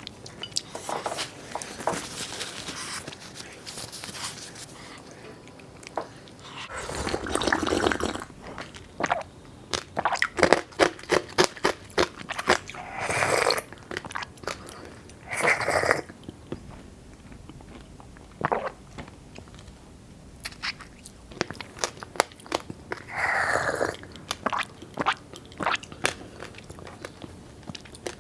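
A person chewing and crunching food close to the microphone, with many crisp crunches and four longer, louder bursts spread through.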